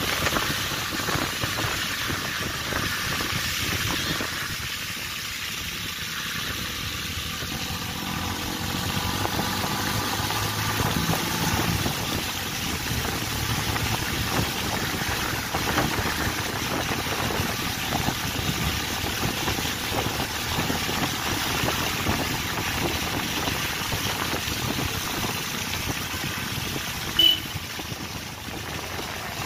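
Street traffic in slushy snow: car engines running over a steady wash of noise, with one short, sharp high sound near the end.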